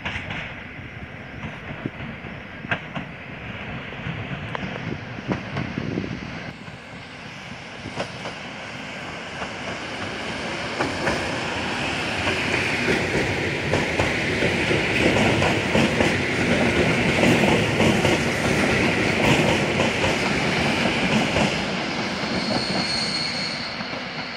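Electric multiple unit train passing close by, its wheels clacking over rail joints with a squeal from the wheels on the curved track. It grows louder to a peak about two-thirds of the way through, then fades as it moves away.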